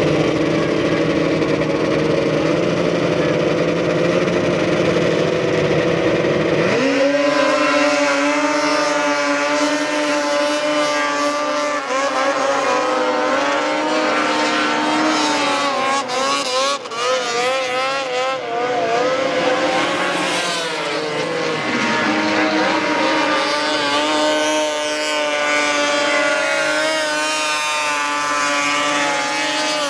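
A steady, lower engine note that switches abruptly about seven seconds in to several snowmobile engines running at high revs as race sleds skim across water, their pitch wavering up and down.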